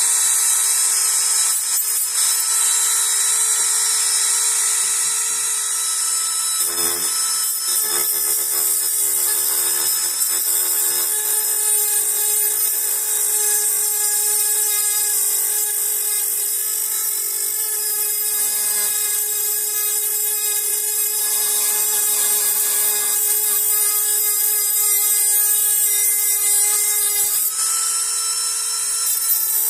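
High-speed rotary cutting tool running steadily as it cuts through metal bars: a constant high whine over a hissing grind, with a brief disturbance about seven seconds in and the whine rising slightly near the end as the load eases.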